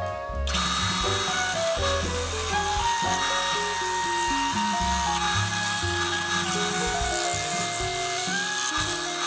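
Background music with a melody of held notes, over the steady noise of woodworking power tools.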